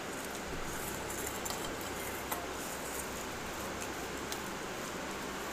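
Fingers mixing rice and curry on a steel plate, giving a few small clicks against the metal over a steady background hiss.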